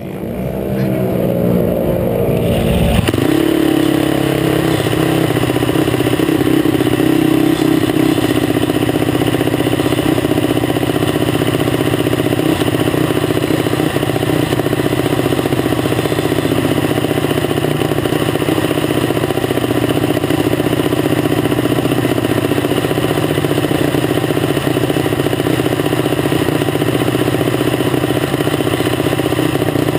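A dragster's engine revs up over the first three seconds or so, then holds a loud, steady drone.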